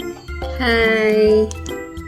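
Light, tinkly background music over a steady bass line, with a voice saying a drawn-out "Hi!" partway through.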